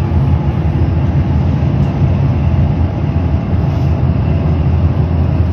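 Steady low rumble of a moving road vehicle heard from on board: engine and road noise while driving.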